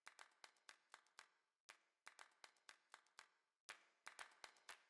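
Faint, sharp clicks or taps, irregularly spaced at a few a second, with a quicker run near the end.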